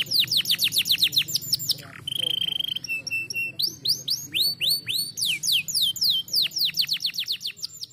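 Domestic canary singing: fast runs of high descending whistled notes, about ten a second, broken just after two seconds by a steady buzzing trill and a short held note, then the fast descending runs return.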